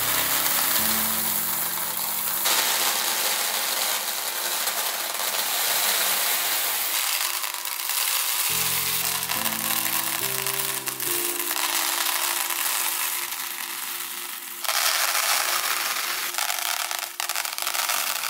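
Hundreds of small plastic LEGO round plates and tiles pouring out of bags into plastic sorting boxes: a continuous dense rattling clatter, heard in successive pours, the last one starting louder near the end. A music bed with a shifting bass line runs underneath.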